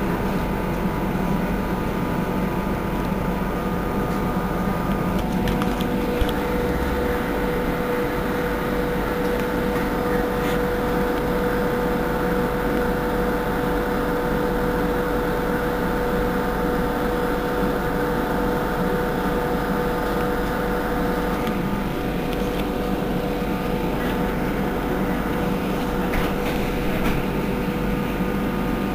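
Irisbus Cristalis ETB12 electric trolleybus standing still with its equipment running: a steady hum carrying a constant tone.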